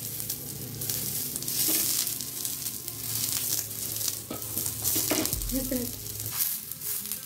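Oil sizzling and crackling on a hot, lightly oiled dosa tawa as a ball of wheat-flour roti dough is pressed flat onto it by hand.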